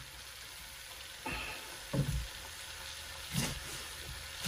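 Diced raw chicken breast sizzling in avocado oil in a nonstick frying pan, a steady faint hiss, broken by three short knocks.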